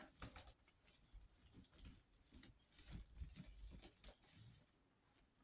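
Faint rustling and light tapping of hands pressing print paper down around the sides of a bird's nest on a gel printing plate, dying away near the end.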